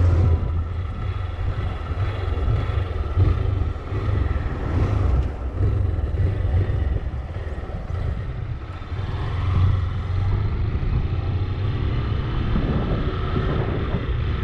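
Motorcycle riding, with its engine running steadily under the rush of wind on the rider's microphone.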